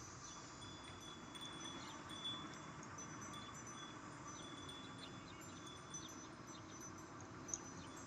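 Faint, high ringing tones, short and repeated at irregular moments, over a steady background hiss.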